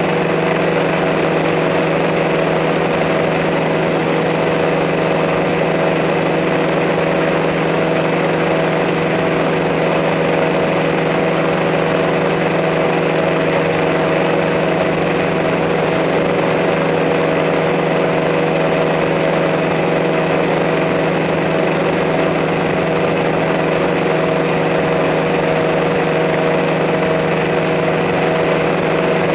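Multirotor drone's motors and propellers running steadily, heard from the aircraft's own microphone: an even hum with several fixed pitches that does not rise or fall.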